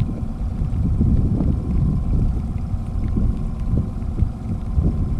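Steady low rumble of wind buffeting the microphone over a boat's outboard motor running.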